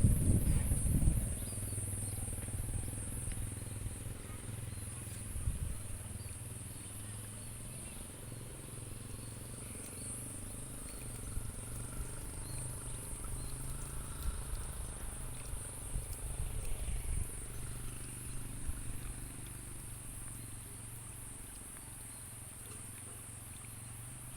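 Insects chirring steadily in a continuous high-pitched pulsing drone, with a low steady hum underneath. A louder low rumble of handling noise sounds in the first second.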